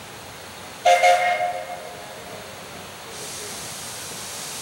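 Steam whistle of Mount Washington Cog Railway's 0-2-2-0 cog steam locomotive #9 "Waumbek" gives one short, loud toot about a second in, fading over about a second. A steady hiss comes up about three seconds in.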